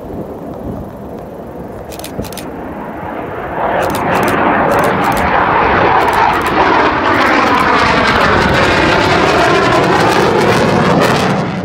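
Eurofighter Typhoon's twin EJ200 jet engines at high power as it climbs away after take-off. The sound grows much louder about four seconds in and stays loud, with a slowly sweeping, phasing rush.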